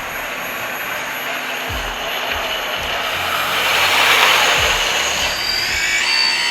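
Hydraulic pump and motors of a 1/16-scale metal RC wheel loader running with a steady whining hiss that swells about four seconds in, with a few low knocks.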